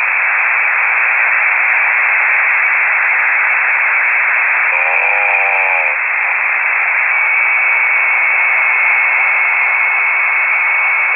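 Hiss of an amateur-radio voice channel heard through a KiwiSDR web receiver between transmissions: loud, steady static cut off sharply at high and low pitch. A brief voice-like sound comes in about five seconds in, and a thin, steady high whistle joins the hiss about seven seconds in.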